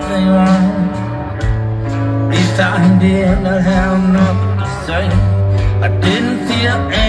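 Rock band playing live through the PA: electric guitars, bass and drums, with sustained low bass notes under the guitar lines and regular drum hits, heard from the crowd.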